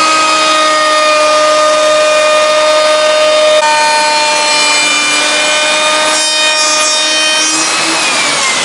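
Bosch plunge router running at full speed while a 45-degree chamfer bit cuts along the edge of a wooden panel: a loud, steady high-speed whine over the rasp of the cut. The whine drops in pitch near the end.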